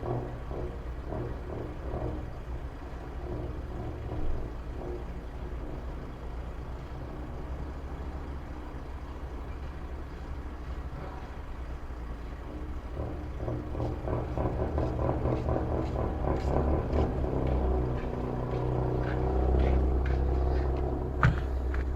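A motor vehicle's engine running steadily with a low hum, growing louder about two-thirds of the way through, with a couple of sharp clicks near the end.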